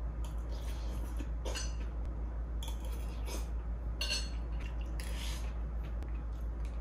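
A metal spoon clinking and scraping against ceramic bowls while someone eats soup and rice, in a handful of short, irregular bursts.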